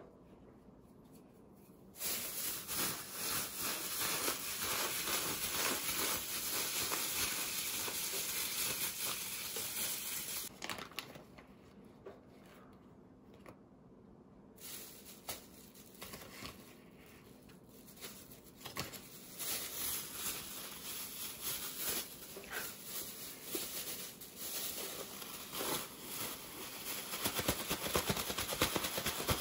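Thin plastic bag crinkling and rustling as hands knead sliced chicken breast inside it with its marinade and potato starch. A steady spell of rustling, a pause of a few seconds near the middle, then irregular crinkling that grows louder near the end.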